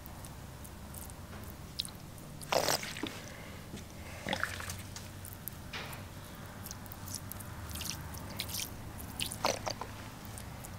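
Faint crackling and squishing of a plastic squeeze bottle as gasoline is squirted into a cylinder head's combustion chambers. The crackles are short and irregular, with a few louder crinkles among them.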